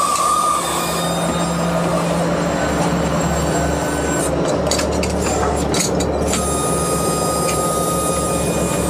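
Steady drone of a fishing boat's engine and deck machinery, with a low hum and thin whining tones that come and go. A run of knocks and clatters about four to six seconds in, like boxes and tubs being handled on deck.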